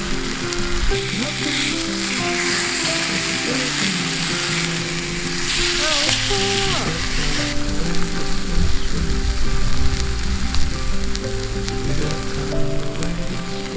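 Steak sizzling in a cast-iron skillet over a hot campfire, a steady frying hiss that swells for a moment in the middle.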